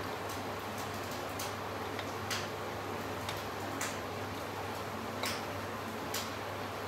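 Wooden spatula knocking against stainless steel pans as cooked rice is scooped from one pan into another and mixed: sharp clicks at irregular intervals, roughly one a second, over a steady low hum.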